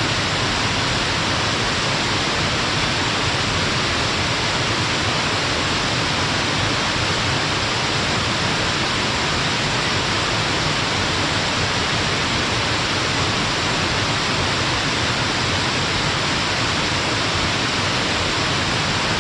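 Stepped waterfall, water pouring over rock ledges in a steady rushing hiss.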